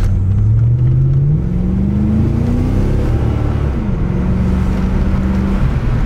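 1992 Corvette's V8 engine heard from inside the cabin while driving, pulling under load with its pitch rising over the first few seconds, then settling to a steady cruise. It runs smoothly with no misfire under load.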